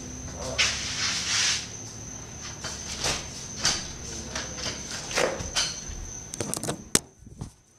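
Steady high drone of insects, with scattered footfalls and knocks on the concrete floor as a person moves about and walks up close. Near the end come a quick cluster of knocks and rattles as the camera is picked up and handled, and the sound then goes muffled.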